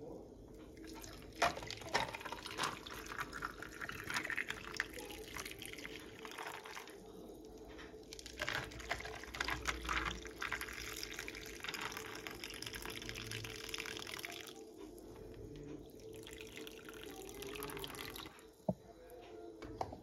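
Coffee poured from a glass French press over ice cubes into two paper cups, one cup after the other, with liquid splashing and trickling. There is a short pause between the two pours and a single sharp click near the end.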